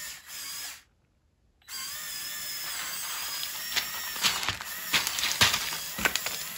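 Electric motors and gearing of a Lego Technic RC excavator whining steadily under remote control, with a few sharp clicks of plastic parts in the second half. The sound cuts out completely for about a second near the start.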